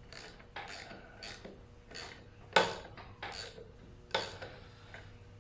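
Short metallic clinks of a wrench and hardware, roughly one every half second to second, the loudest about two and a half and four seconds in. This is hand work on the nuts and bolts drawing a Ford 9N tractor's rear axle seal into place.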